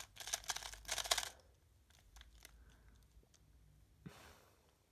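Plastic 2x2 speed cube, a MoYu RS2M Evo, turned in a quick flurry of clicking turns for about a second, then a few scattered single clicks as it is scrambled. A brief rustle follows about four seconds in.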